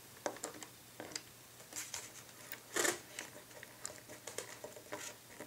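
Small screwdriver turning a small screw into a wing strut mount: scattered light clicks and ticks, with a sharper click about three seconds in.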